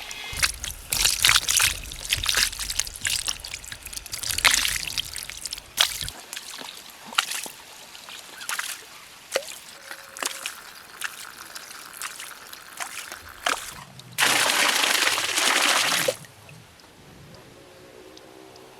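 Water sloshing and trickling in irregular splashes, then poured in a steady stream for about two seconds near the end.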